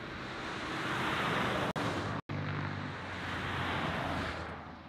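A vehicle driving past on the road, its tyre and engine noise swelling up and then fading away. The audio cuts out briefly twice in the middle, typical of live-stream dropouts.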